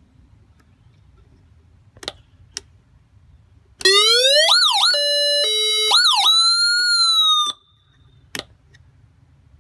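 Electronic siren recall tones from an OCEANEARS Patriot acoustic diver recall system's Carson siren, stepped through in under four seconds: a rising wail, fast up-and-down sweeps, a two-tone high-low alternation, then a held, slowly falling tone. This is the emergency signal that calls divers back to the surface. Two sharp clicks come before the tones and one after.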